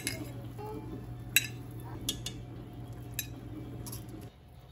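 Metal fork and spoon clinking against a ceramic baking dish and a cast-iron pot as boiled chicken pieces are lifted out: about six sharp clinks spread through, over a steady low hum that stops shortly before the end.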